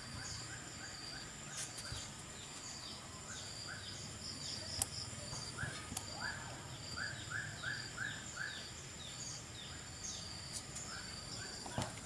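Background ambience of small birds chirping in short, repeated falling notes over a steady, high-pitched insect drone, with one light click about five seconds in.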